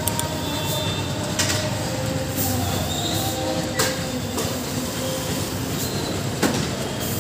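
Petrol pump dispenser running while fuel flows through the nozzle into a motorcycle's tank: a steady hum and rush, with a few sharp clicks.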